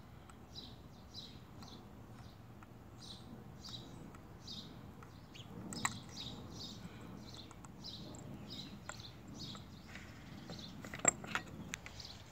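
A bird chirping in short, high chirps repeated steadily, with light clicks of a metal spatula against a glass test tube as copper sulfate powder is scooped in. A sharp knock about eleven seconds in is the loudest sound.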